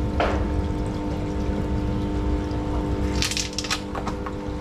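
Water splashing and pouring in a fish-tank circulation system, over a steady pump hum, with brief louder splashes near the start and about three seconds in.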